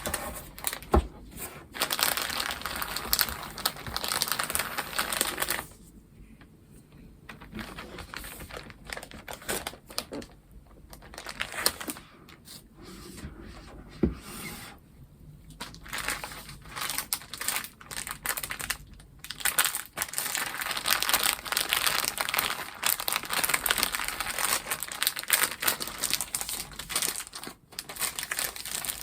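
Packaging being unwrapped by hand: crinkling and rustling with some tearing, in irregular stretches broken by short pauses.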